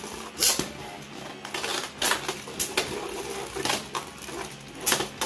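Two Hasbro Beyblade Burst spinning tops, Kolossal Lúinor L6 and Demise Devilos, battling in a plastic stadium: sharp plastic clashes as they strike each other again and again, about five hard hits over a steady hum.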